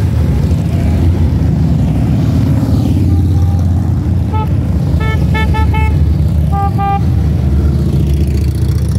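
Touring motorcycles rumbling past with a steady, low engine drone. Short horn toots start about three seconds in, with a quick run of about four beeps around the middle and two more shortly after.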